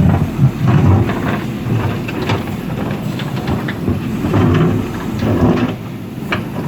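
Heavy earth-moving machine working: a low diesel rumble that swells and eases, with irregular knocks and clunks.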